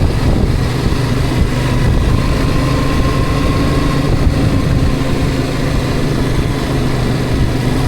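Steady engine and road noise of a moving vehicle, a constant low rumble with an even engine hum.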